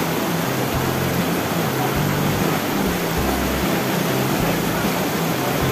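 Steady rush of river water over rocks, with an intermittent low rumble underneath.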